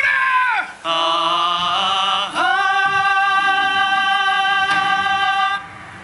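A singing voice over the show's loudspeakers, with no words: a short falling phrase, then a held note with vibrato, then a long steady note that cuts off suddenly near the end.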